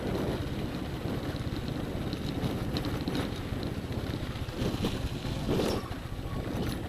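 Small single-cylinder motorcycle engine running steadily while riding, with wind buffeting the microphone and a few short knocks.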